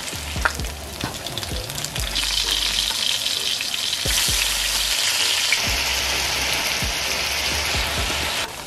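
Oxtail pieces frying in hot coconut oil in a Dutch pot, browning with a steady sizzle that grows louder about two seconds in, with a few light knocks.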